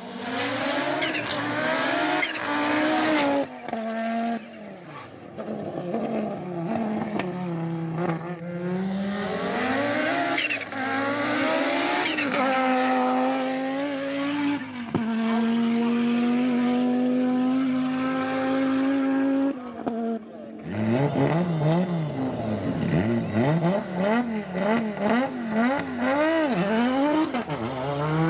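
Audi quattro Group B rally car's turbocharged five-cylinder engine revving hard, pitch climbing and dropping with gear changes and throttle lifts. It holds steady revs for several seconds midway, then runs through a quick series of short rises and falls near the end.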